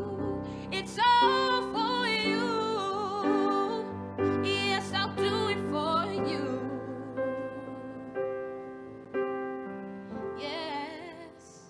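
A woman's voice singing wordless, wavering runs over held piano chords that change every second or two. The music fades out near the end.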